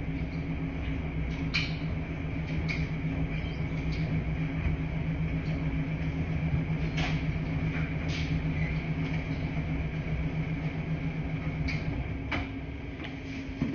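Laundry-room washing machines running with a steady low hum and rumble, with scattered light clicks and knocks. The hum drops away near the end.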